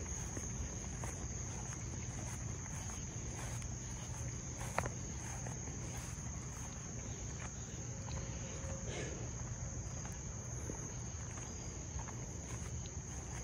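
A steady, high-pitched chorus of crickets with no break, over a low steady rumble. A single sharp click comes about five seconds in.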